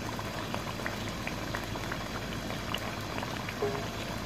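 Spinach-and-mutton curry bubbling in an aluminium pot on a gas stove: a steady simmer with many small, irregular pops.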